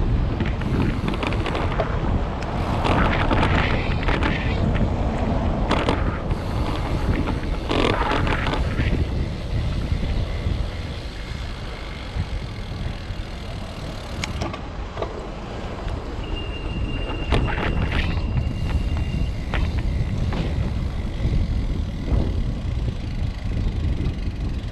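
Wind rushing over the microphone of a moving bicycle, with a constant low rumble of city traffic and riding. A few sharp clicks are heard, and a brief high steady tone sounds about two-thirds of the way through.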